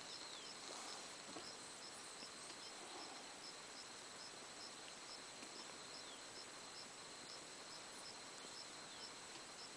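Faint open-air ambience: a short, high chirp repeating evenly about twice a second over a steady high hiss, with a few faint falling calls.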